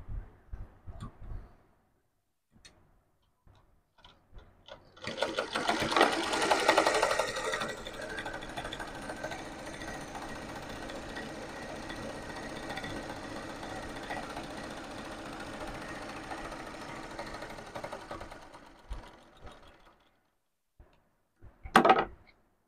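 Zig-zag sewing machine stitching a test row on cloth for about fourteen seconds, loudest at the start, then running steadily before fading out. It is checking the stitch after the bobbin-case tension screw was tightened to stop loose looped stitches. A few soft clicks at the start and a brief rustle near the end as the cloth is pulled out from under the foot.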